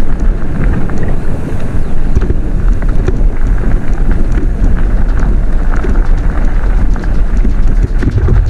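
Wind buffeting the microphone over the steady rumble of a mountain bike riding down a rough dirt trail, with frequent small clicks and rattles from the bike and tyres.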